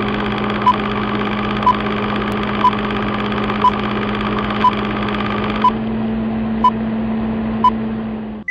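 Film-countdown sound effect: the steady whir and hum of a running film projector, with a short high beep about once a second marking each number.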